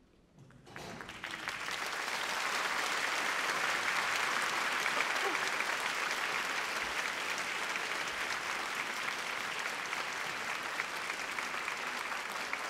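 Audience applauding: it starts out of quiet about a second in, swells quickly and then holds steady.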